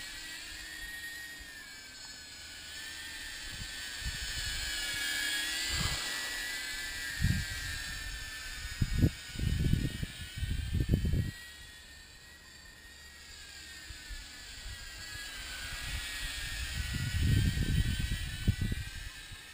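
Small 2S cinewhoop quadcopter with 63 mm propellers on 1404 motors flying at about half throttle: a steady high-pitched propeller whine that wavers in pitch, fading in the middle as it flies farther off and growing louder again near the end. Short bursts of low rumble come and go over it.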